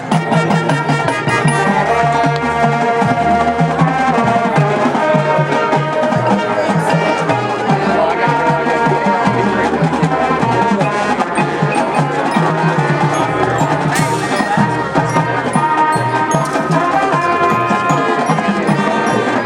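Marching band playing: brass with a dense percussion line of drums, wood block and mallet percussion.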